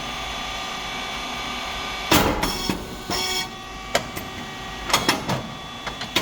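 Rice cake machine running: a steady hum of its hydraulic pump motor and fan, then about two seconds in a sudden loud burst with a short hiss as a cycle releases, followed by several sharp mechanical clicks and clanks from the moulds and cylinder.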